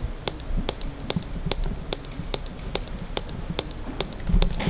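Water dripping into a stainless steel bowl: a steady run of sharp plinks, about two and a half drops a second.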